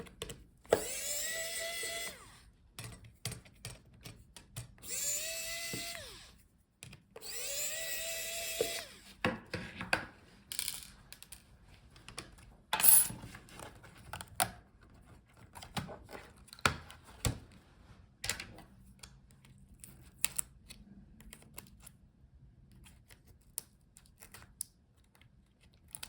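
Small electric screwdriver spinning up and running three times, about 1.5 s each, in the first nine seconds as it backs out the touchpad's retaining screws. Scattered light clicks and taps of handling small parts follow.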